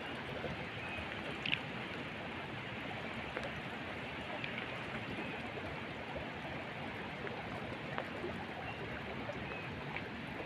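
Small stream running steadily, an even rush of flowing water, with a few faint ticks and one brief louder tap about a second and a half in.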